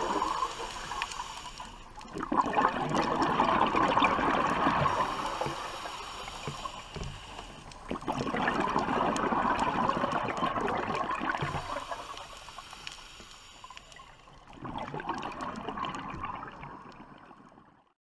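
Scuba diver's exhaled bubbles from the regulator gurgling, heard underwater, in surges of a few seconds about every six seconds with quieter breaths-in between; the sound fades out near the end.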